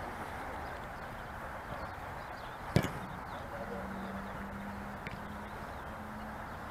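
A single sharp thud of a football being struck, about three seconds in, over steady open-air background noise. A faint low hum sets in a little after it.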